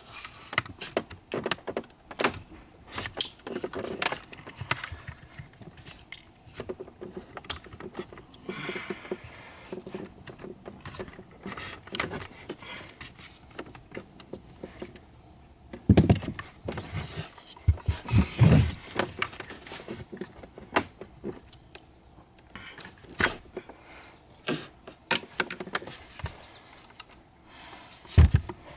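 Irregular clicks, knocks and rattles of hand tools and parts being handled, with a faint high tick repeating two to three times a second. Louder thumps come about 16 and 18 seconds in, and again near the end.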